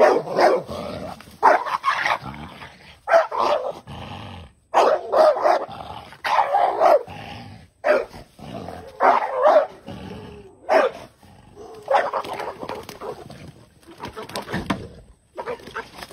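A dog barking and growling in a long run of separate bursts, roughly one a second. This is aggressive barking at a snake it is fighting.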